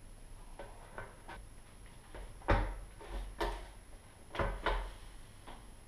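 Tubular roller-shutter motor being turned and pushed into its metal winding tube, knocking and scraping against the tube: a few light taps, then several louder knocks in the second half as it is turned to find the one position in which it fits.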